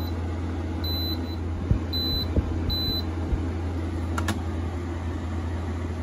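Frigidaire 5000 BTU window air conditioner beeping four times, about once a second, as it takes button presses from its remote, over a steady low hum from the unit running on low fan with the compressor not yet on. A sharp click about four seconds in.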